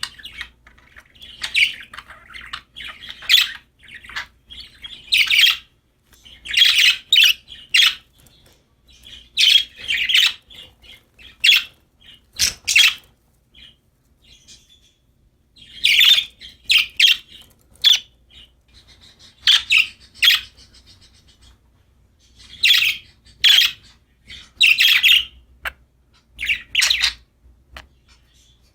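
Budgies chirping in short bursts of chatter, each up to about a second long, with brief pauses between the bursts.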